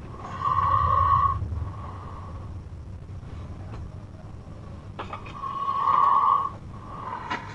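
A sleeping man snoring loudly: two snores about five seconds apart, each lasting about a second, with a fainter breath near the end.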